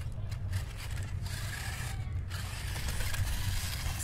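Small 3.7-volt battery-powered RC monster truck driving over sand: its little electric motor and gears whir while the tyres scrape through the sand, over a steady low rumble.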